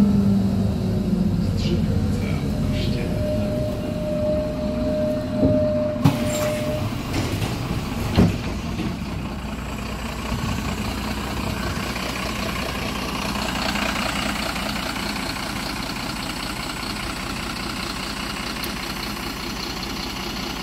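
MAZ 103.485 city bus, with a Mercedes-Benz engine and Allison automatic gearbox, running as it pulls to a stop, heard from inside the bus. About six seconds in the sound opens out and a sharp sound comes about eight seconds in. After that the bus's diesel engine is idling at the stop.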